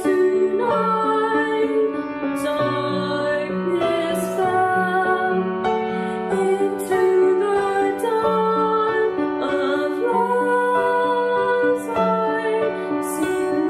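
Two young voices singing a slow song over piano accompaniment, the notes held about a second each.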